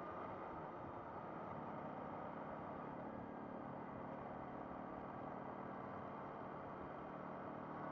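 MV Agusta Brutale Rosso 800 three-cylinder engine running at a steady, even speed while riding, a faint, even drone mixed with road and air noise.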